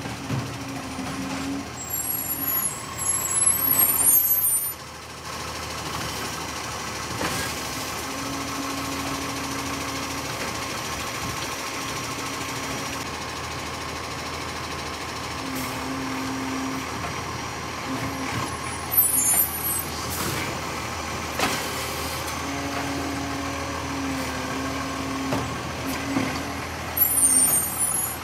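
Iveco side-loading garbage truck's diesel engine running as it moves up to the bins, with a low hum that comes and goes. Three loud hisses of the air brakes sound: about two seconds in, about two-thirds of the way through, and near the end.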